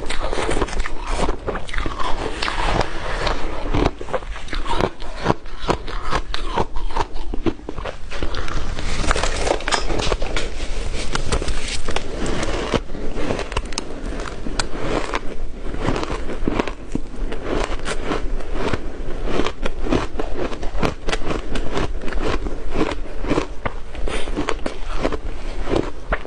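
Close-miked crunching and chewing of ice: a dense, irregular stream of crackling bites and grinding with no pauses.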